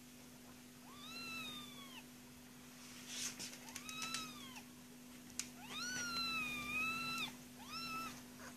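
Month-old kittens mewing: four high, arched mews, the third the longest, over a steady low hum.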